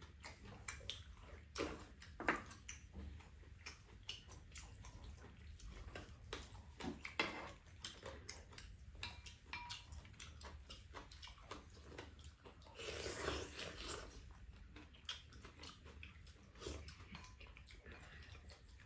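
Quiet eating sounds: spoons and chopsticks clicking and scraping in a stainless-steel bowl of bibimbap, with chewing, as light scattered clicks throughout. A longer, louder noisy sound comes about 13 seconds in.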